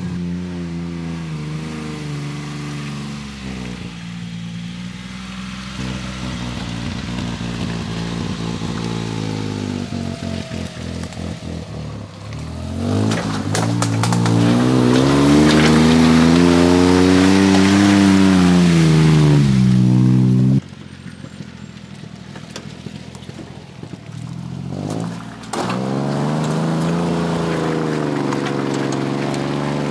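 Honda Acty 4WD kei truck's small engine revving up and down under load as it crawls up a rutted creek bed. It is loudest in the middle, with a long rise and fall in pitch, cuts off suddenly about two-thirds of the way through, and comes back a few seconds later.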